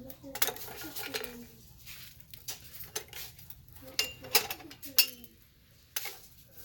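Twigs and sticks being dropped and pushed into a small metal wood-burning camp stove, making an irregular series of sharp knocks and clinks against the metal, loudest about four and five seconds in.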